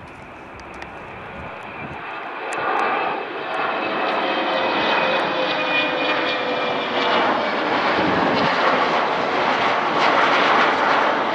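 Jet airliner climbing out after takeoff, its engine noise swelling over the first few seconds and then holding loud and steady. A faint whine sits over the noise and slides slightly lower.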